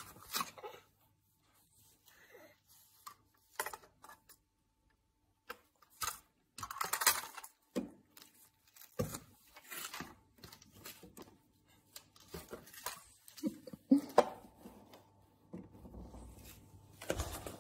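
Scattered small knocks, taps and rustles as a toddler handles a plastic toy and pats a windowsill, irregular and spread across the stretch, with a louder cluster about seven seconds in and more around fourteen seconds in.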